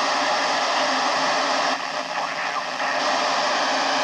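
Steady FM static hiss from a handheld amateur radio transceiver's speaker with the squelch open, tuned to the PO-101 satellite downlink, with no clear station coming through; it dips slightly about two seconds in.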